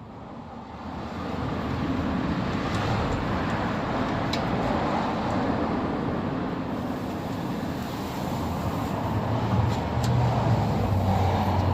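A motor vehicle running, a steady rumble with a low hum under a broad rushing noise, building up over the first couple of seconds and loudest near the end.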